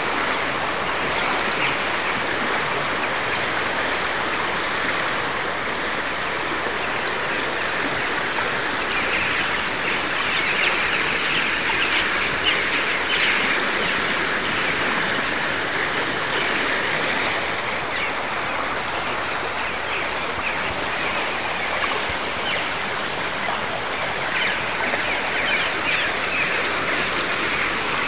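Turbulent water rushing steadily through a sluice gate into a channel, a constant churning and splashing.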